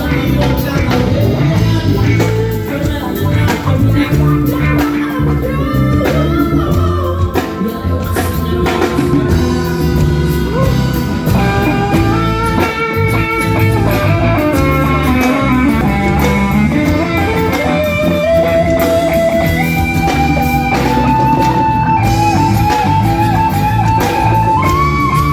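Live band playing amplified music: guitar over bass and drums, the guitar melody climbing step by step in pitch through the second half.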